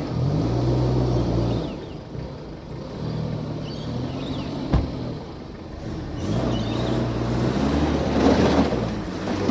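Off-road vehicle's engine revving up and down several times as it is driven over rough ground, with one sharp knock about halfway through and rough tyre-and-ground noise building near the end.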